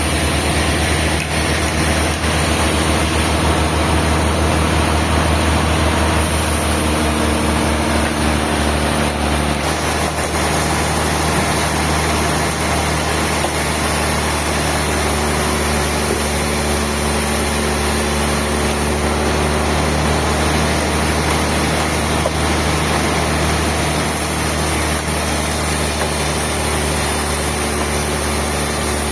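Sawmill machinery running steadily, a loud continuous engine-like hum whose pitch shifts slightly about six and again about ten seconds in.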